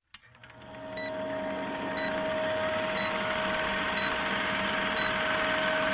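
A steady electrical-sounding hum with a constant mid-pitched tone, fading up after a moment of silence, with a short high beep about once a second.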